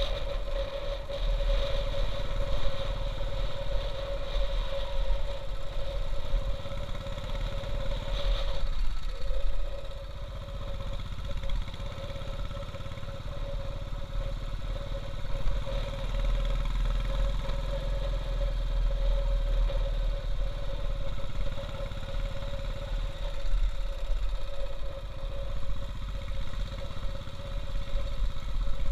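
Royal Enfield Bullet's single-cylinder engine running steadily as the motorcycle is ridden over a rough gravel road.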